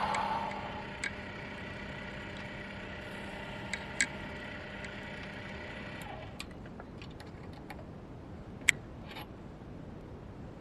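Proxxon PD 250/E mini lathe motor running with a steady hum, switched off about six seconds in and winding down. A few sharp metallic clicks, the loudest near the end.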